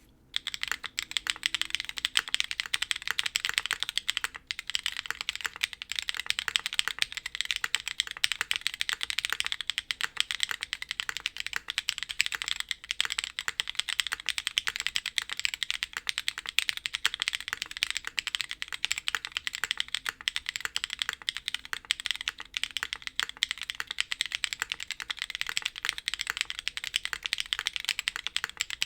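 Continuous fast typing on a custom mechanical keyboard with Cherry MX2A Black linear switches on Kailh Black stems, an aluminium half plate and DCS-profile keycaps: a dense run of crisp key clacks, starting just after the opening moment.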